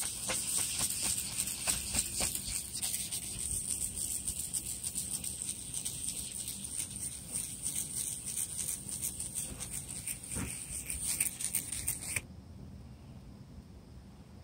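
1000-grit sanding disc rubbing over a fogged headlight lens in a circular motion: a steady scratchy hiss with small ticks. It stops abruptly about twelve seconds in.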